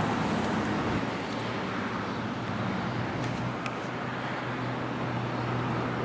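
Steady traffic noise with a low, even hum underneath.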